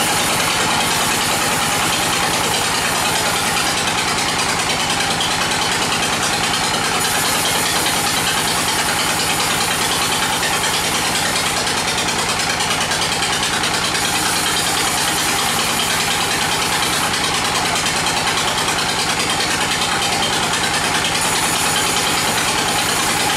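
Sawmill log bandsaw running steadily, its blade cutting lengthwise through a bayur log over the hum of its drive engine.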